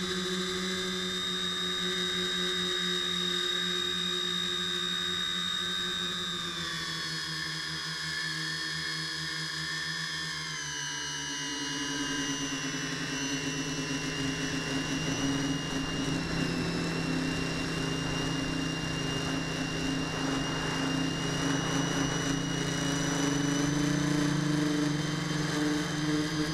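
The tricopter's three brushless motors and 10x4.5 propellers buzzing in flight, heard from the onboard camera. The pitch steps down about six seconds in and again around eleven seconds, then slowly climbs, with a rushing hiss growing under it in the second half.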